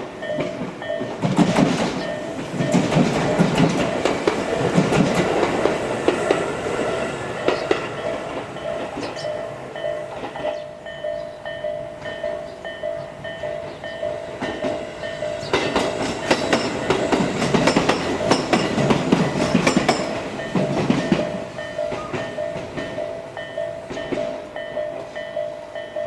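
Japanese level-crossing warning bell ringing steadily and repeatedly while Tobu Kameido Line trains pass, with two loud passes: one from about a second in to about ten seconds, another from about fifteen to twenty-one seconds, wheels clattering over the rail joints.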